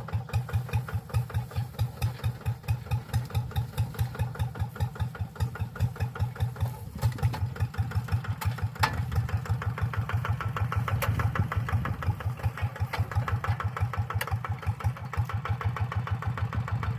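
Hand tractor's single-cylinder diesel engine running with a slow, even chug of about five to six beats a second. From about seven seconds in the beat runs a little quicker and denser.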